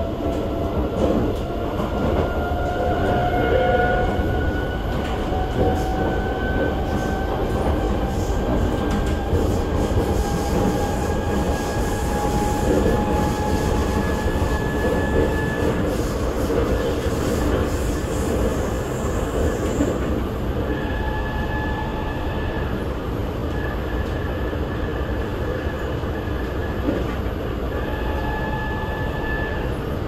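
The interior of a C751B metro train running at speed: a steady rolling rumble with a whine that slowly rises in pitch as the train gathers speed over the first twenty seconds or so. The whine then levels off and comes and goes near the end.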